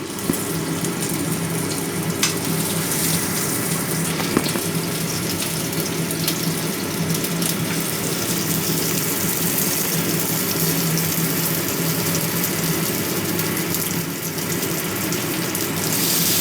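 Kitchen range hood fan running with a steady hum, under a continuous rushing hiss.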